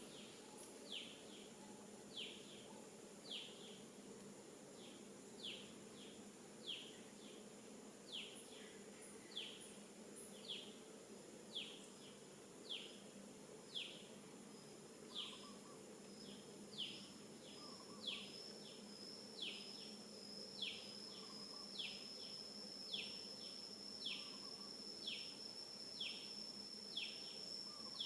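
Outdoor animal sounds: a short high call sweeping down in pitch, repeated about once a second, with a steady high whine fading in about halfway and growing louder.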